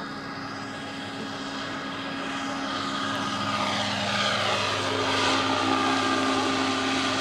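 Large scale radio-controlled model helicopter in flight: a steady whine from its rotor and drive, getting louder from about two seconds in as it comes closer.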